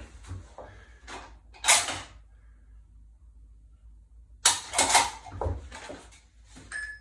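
Clicks and clatter of a bolt-action precision rifle being handled in dry-fire practice: a sharp knock about two seconds in as it goes onto the rest, a pause, then a quick run of mechanical clicks and rattles from about four and a half seconds, the dry-fire snap and bolt being worked as it is lifted off. A short timer beep comes at the very end.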